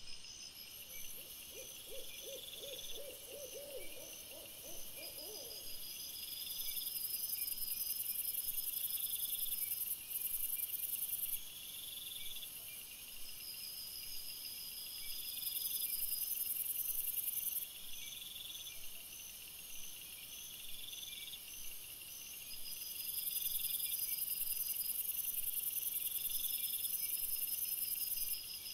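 An owl hooting: one wavering run of quick notes, from about one to five and a half seconds in, over a steady high hiss with faint regular pulsing, which gets louder and softer in steps several times.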